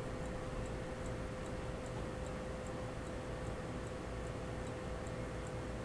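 Mechanical pocket watch movement ticking rapidly and evenly as its balance and escapement run. It is running a little slow, which the watchmaker suspects comes from the dart on the pallet fork rubbing the roller table or from the hairspring's overcoil touching.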